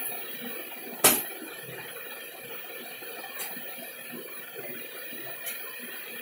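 Pulled sugar candy (javvu mittai) being worked by hand: one sharp slap about a second in as the heavy candy rope is folded, then two fainter taps. A steady low hiss sits under it.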